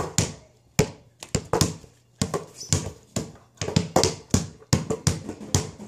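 Basketball bouncing hard on an indoor floor in a fast, uneven dribble, about two to three bounces a second, coming closer together in the second half.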